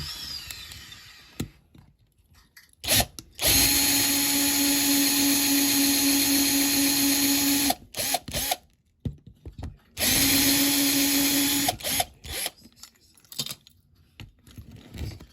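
Small electric drill drilling out the rivets that hold a diecast model car together. It runs at a steady pitch twice, about four seconds and then about two seconds, with short blips of the motor around the runs.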